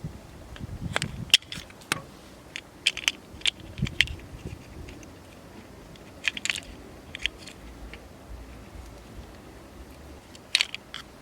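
Scattered, irregular clicks and light knocks of small hard objects being handled, in clusters about a second in, around six and a half seconds, and near the end.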